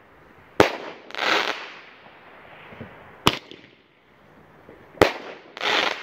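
Aerial fireworks bursting: three sharp bangs, about a second in, a little past three seconds and about five seconds in. The first and last bangs are each followed by a short rush of noise.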